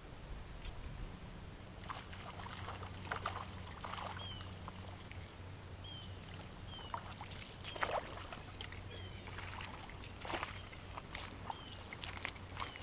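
A hooked speckled trout splashing at the surface as it is reeled to the bank and swung out of the water, with several irregular splashes. Short high chirps come now and then over a low steady hum.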